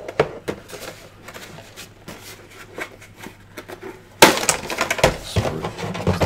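Packaging of a microphone being handled and unpacked: light clicks and rustles at first, then from about four seconds in a loud crinkling and crunching as the microphone is pulled out in its white packaging insert.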